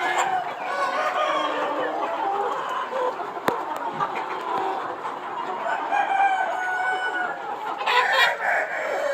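A flock of Aseel chickens clucking, with roosters crowing over one another. A sharp click comes about three and a half seconds in, and a louder burst of calls near the end.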